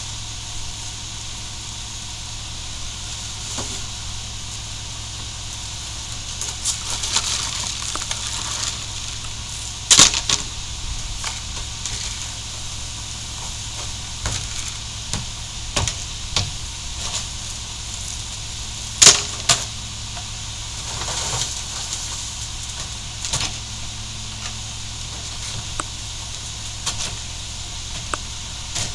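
Mack MR garbage truck with a McNeilus rear-loader body idling steadily while trash is thrown by hand into its rear hopper: scattered knocks and thuds of bags, bins and brush landing, with two loud bangs about ten and nineteen seconds in.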